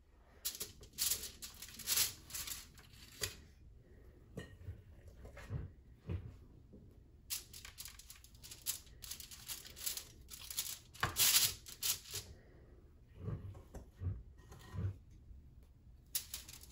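Aluminium foil on a baking sheet crinkling and rustling as cookie dough is spooned onto it and pressed into shape, in irregular scrapes with a louder stretch about eleven seconds in.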